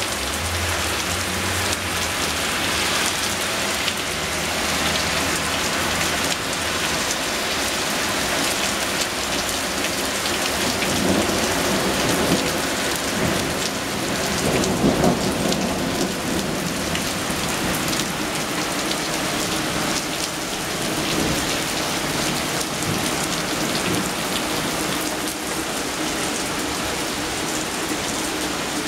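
Heavy rain pouring down steadily. There is a low rumble in the first several seconds, and the rain grows a little louder for a few seconds around the middle.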